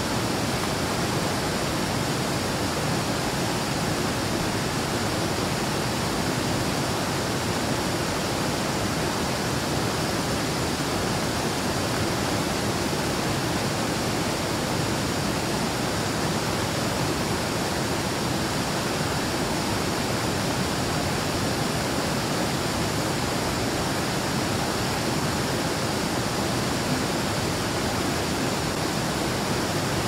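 Small waterfall rushing heavily into a pool: a steady, unbroken wash of falling water.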